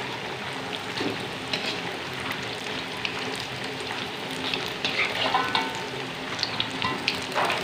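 Instant-noodle fritters deep-frying in hot oil in a wok: a steady sizzle, with a metal spatula scraping and clicking against the wok a few times as the fritters are turned.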